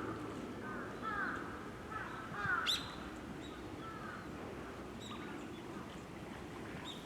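Several short bird calls, quick falling notes bunched in the first few seconds, with one fast upward-sweeping note near the middle, over a steady low background rumble.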